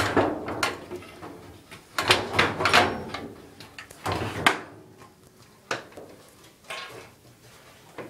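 Knocks, clatters and scrapes of an LG dryer's sheet-metal parts being worked loose and pulled off by hand, a string of separate impacts that thin out in the second half.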